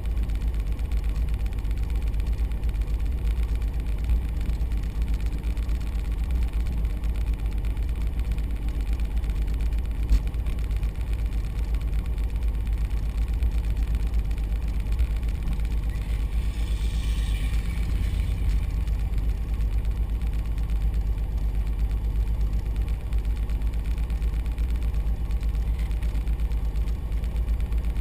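Light aircraft piston engine running steadily at low power, a deep continuous drone, with a brief hiss about two-thirds of the way through.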